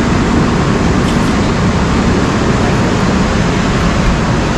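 Steady, even noise of a railway station platform, with no single sound standing out.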